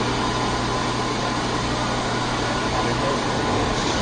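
Banana-type polyurethane pouring machine running in a factory: a steady mechanical hum and hiss with a thin constant whine, no distinct strokes or clanks.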